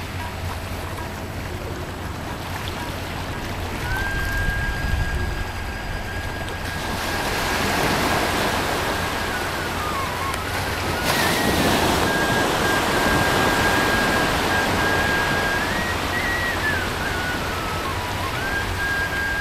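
Sea surf washing in on a flat sandy beach, a steady rush of water that swells twice, about a third of the way in and again near the middle.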